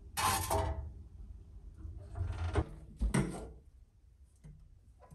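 Sheet-metal toy truck box clattering and scraping on the perforated steel floor of a sandblast cabinet, then the cabinet door being shut with a thump about three seconds in. A low steady hum runs underneath.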